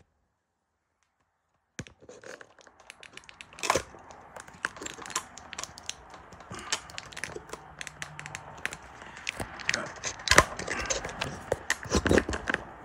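Handling noise: a dense run of sharp clicks and knocks with crinkling, rustling sounds between them. It starts abruptly after a short dead-silent stretch, with a louder knock a couple of seconds later.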